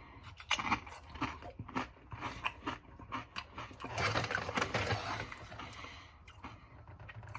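Close-up crunching and chewing of Doritos tortilla chips in the mouth: a run of sharp, irregular crunches, denser about four seconds in.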